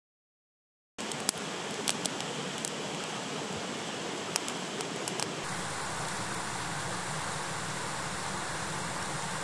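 Wood fire burning in a small steel fire pit: a steady hiss with scattered sharp crackles and pops that stop about halfway through, leaving only the hiss. The sound starts from silence about a second in.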